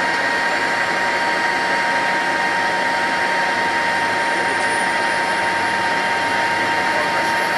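Handley Page Victor's Rolls-Royce Conway jet engines running, heard inside the cockpit as a steady drone with steady whining tones. A faint high whine rises slowly in pitch through the second half.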